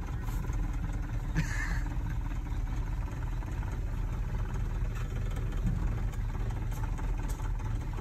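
1969 Ford F250 pickup's engine idling steadily in gear, heard from inside the cab, on a newly fitted Edelbrock four-barrel carburetor; it is shaking the truck a lot at idle. A short higher-pitched sound cuts in about a second and a half in.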